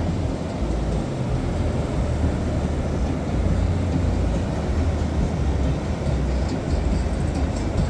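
Strong wind buffeting the microphone in a low, fluttering rumble, over the steady wash of ocean surf.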